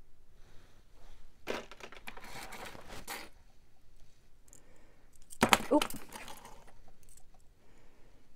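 Rustling and crinkling as costume jewelry pieces are handled and sorted in a box, in two bursts: one about a second and a half in and a louder one past the middle.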